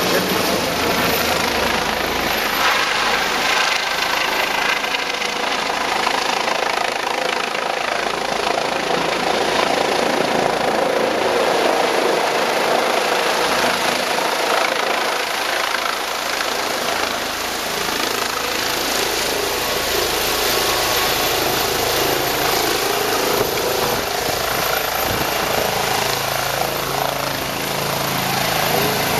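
Rescue helicopter's rotor and turbine noise, loud and steady as it descends to land, with a deeper low rumble building in the second half as it comes down close.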